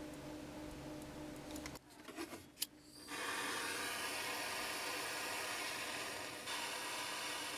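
A couple of sharp clicks, then a handheld gas torch hissing steadily from about three seconds in, getting louder and brighter about three seconds later as its flame heats a fine silver chain link.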